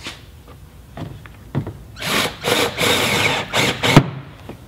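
Cordless drill/driver running a stainless steel screw through a jet ski front sponson into the hull, in several short bursts over about two seconds, ending in a sharp knock as it stops. A few light clicks come before it.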